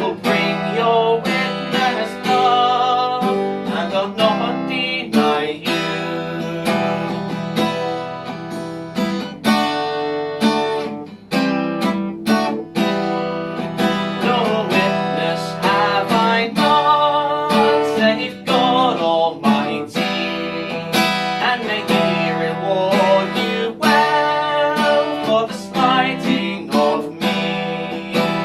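Acoustic guitar strummed steadily in a folk accompaniment, chords ringing between regular strokes.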